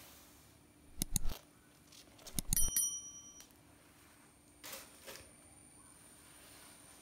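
A few quick clicks, then a short bright bell ding: the click-and-bell notification sound effect of a subscribe-button animation.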